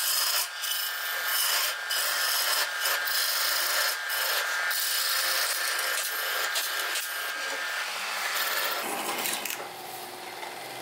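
A hand turning tool scraping a spinning wooden cup blank on a wood lathe: a steady hissing scrape of the cut. The cutting stops about nine seconds in and the sound drops.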